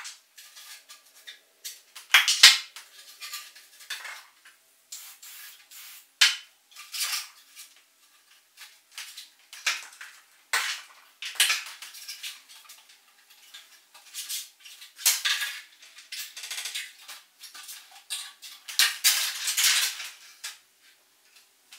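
Hard plastic being handled on a tabletop: a thin-walled 3D-printed wing and a small glue bottle knocking, clicking and scraping in an irregular run of short sounds, the loudest knock a little over two seconds in.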